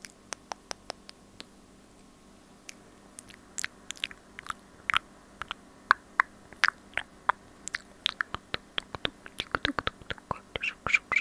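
ASMR mouth sounds made right against a small clip-on microphone cupped at the lips: sharp wet clicks and pops. A quick run of even clicks at the start, a short pause, then irregular clicks that grow denser toward the end.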